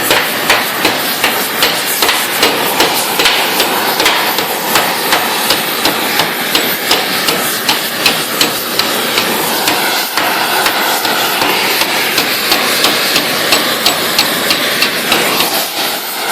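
Hand hammer striking hot 3/16-inch steel, about two blows a second, over the steady roar of an oxy-acetylene rosebud heating torch. The blows stop near the end.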